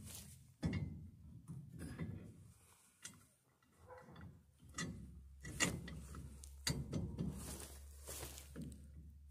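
Irregular knocks and clinks of a steel drum-brake backing plate being handled and fitted onto the axle end, with metal tapping against metal.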